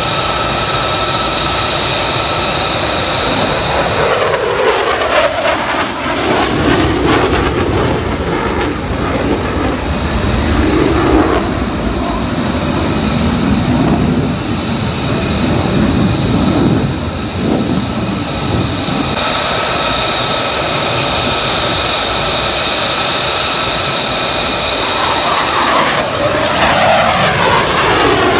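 Military fighter jets flying past with a steady jet-engine whine and rushing noise, swelling into a sweeping whoosh as they pass about four to six seconds in, and another sweeping pass near the end.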